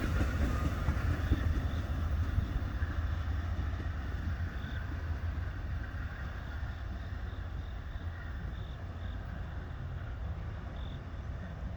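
Amtrak passenger train receding after passing, the rumble of its wheels on the rails slowly fading away.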